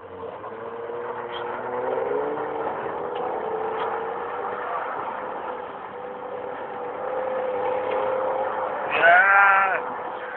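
Car engine revving hard and held high as the car slides sideways on loose dirt, its pitch wavering in the first few seconds, with a steady hiss of tyres spraying dust and gravel. About nine seconds in, a person lets out a brief loud yell.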